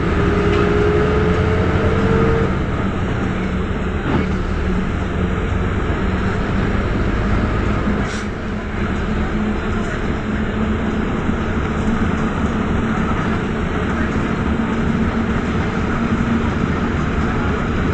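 Inside a moving Ikarus city bus: the diesel engine and drivetrain running steadily under way, with road noise. A whine rises over the first couple of seconds, then fades.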